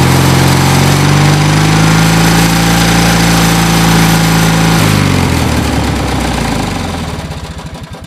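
Truck engine running steadily, then about five seconds in its pitch drops and it slows into an uneven chugging that fades away.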